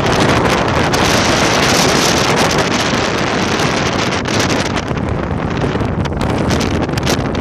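Wind blowing hard across the microphone: a loud, gusting rush of noise that eases a little about five seconds in.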